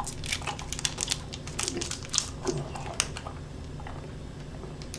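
A Hi-Chew candy's wrapper crinkling in the hands along with chewing and mouth sounds, a scatter of sharp little clicks and crackles for about three seconds, then quieter.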